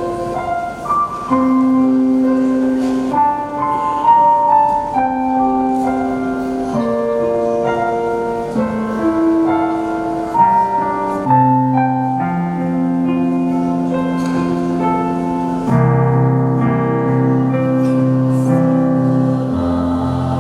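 Electronic keyboard playing a slow hymn introduction: a melody of held notes over sustained chords, with deeper bass notes joining about halfway through and filling out further near the end.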